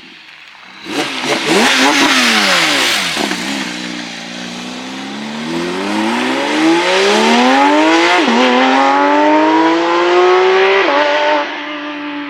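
Sports car engine accelerating hard: it comes in loud about a second in, its pitch dips and then climbs steadily, dropping sharply twice late on as it shifts up.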